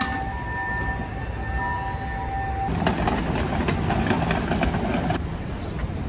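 Busy street traffic rumbling steadily, with a steady whine that stops a little before halfway. It gives way to about two and a half seconds of louder, clattering noise before settling back to the rumble.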